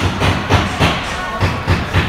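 Irregular knocks, three or four a second, over a steady background din.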